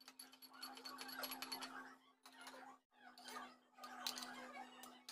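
Metal spoon stirring boiled corn salad in a stainless-steel bowl: quick faint clicks and scrapes of the spoon against the steel, pausing briefly near the middle. A steady low hum runs underneath.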